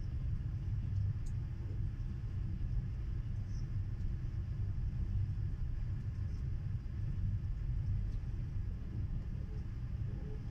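Passenger train running at speed, heard from inside the carriage as a steady low rumble.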